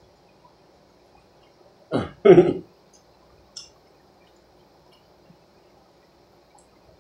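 A man coughs twice in quick succession, about two seconds in. The second cough is the louder one.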